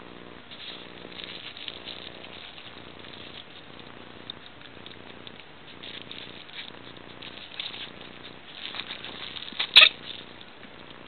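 Coton de Tulear puppies shuffling and scratching about on fabric bedding, with a soft low rumble coming and going. One sharp knock near the end.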